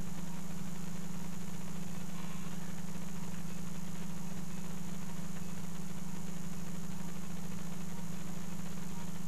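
Steady, unchanging low hum of operating-room equipment, with a faint high steady tone above it.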